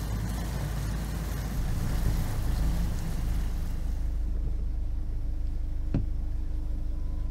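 Motorboat engine running steadily, a continuous low hum, with a hiss over it that fades away about four seconds in. One short knock comes near the end.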